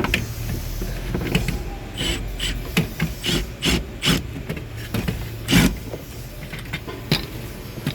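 Socket and ratchet wrench work on metal bolts: irregular sharp clicks and clinks of the tools, over a steady low hum.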